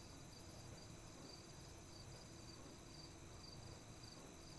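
Near silence: room tone with a faint high chirping that pulses about two or three times a second.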